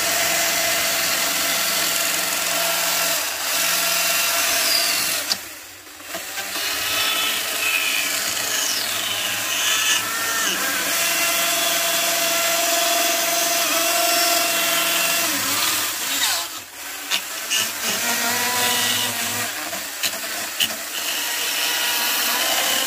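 Carving chainsaw running hard as it cuts into a wooden log, its pitch shifting with the load. It lets off briefly about five seconds in and again about sixteen seconds in.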